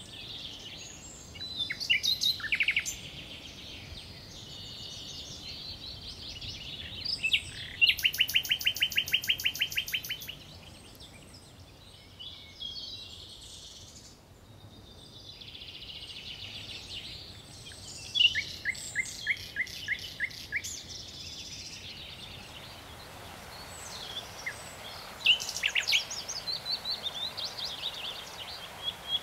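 Several songbirds singing in spring, in overlapping phrases that include a fast trill of rapidly repeated notes and a slower string of about five notes a second. About three-quarters of the way through, a steady rush of water spilling over a small weir joins in under the birdsong.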